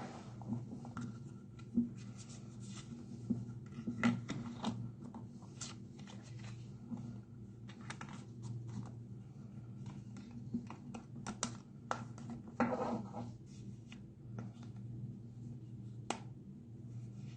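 Hands handling an iPhone 13 mini and a Bellroy card case: scattered small clicks and short scrapes, with a longer scraping stretch about two-thirds of the way in, over a low steady hum.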